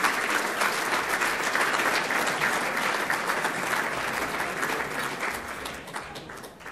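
Audience applauding: dense, steady clapping that fades away near the end.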